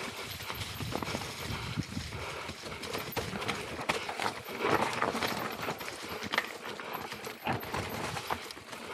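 Mountain bike rolling down a rocky trail strewn with loose stones and dry leaves: tyres crunching over the rocks while the bike rattles and clatters at every bump.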